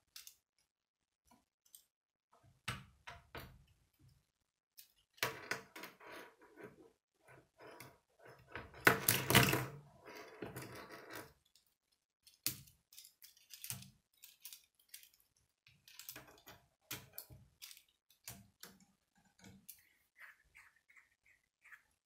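Plastic K'nex rods and connectors clicking and snapping together as they are handled and fitted, with light rattling of loose pieces. A louder clatter of plastic pieces comes about nine seconds in.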